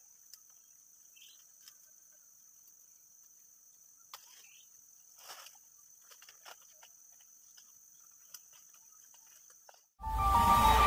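Faint steady high-pitched insect drone in a coffee plantation, with scattered soft rustles and snaps of leaves and branches as ripe coffee cherries are picked by hand. About ten seconds in, loud music cuts in abruptly.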